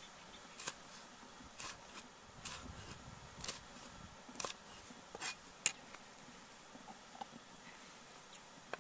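A cleaver chopping red chilies on a thick round wooden chopping board: a sharp knock of the blade on the wood about once a second for the first five or six seconds, then a pause and one more knock near the end.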